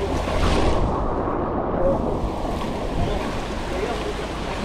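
Loud, steady rushing storm noise of the typhoon, heaviest in the deep low end, with no distinct events.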